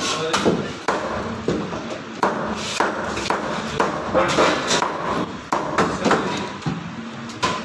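Large knife chopping rohu fish into pieces on a wooden cutting block: sharp, irregular chops, about two a second.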